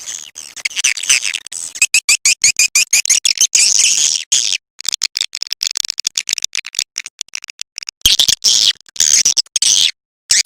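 Swiftlet calling sound: rapid, dense high-pitched twittering chirps of walet swiftlets, used as a lure call for a swiftlet house. It breaks off briefly twice, about halfway through and near the end.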